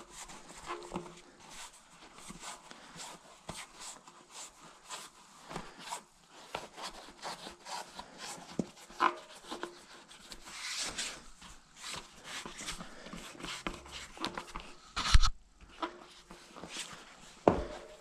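Rubber tyre bead being pushed by hand over the edge of a carbon rim: scattered rubbing, scuffing and small clicks as the folding tyre is worked round the wheel, with one sharp knock about 15 seconds in.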